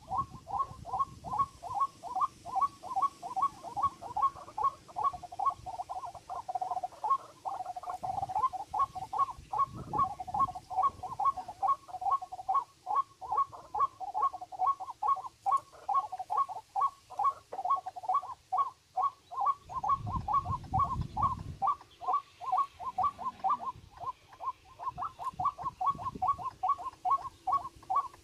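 A bird calling in a fast, steady string of short repeated notes, about two or three a second, with a lower note woven in for long stretches.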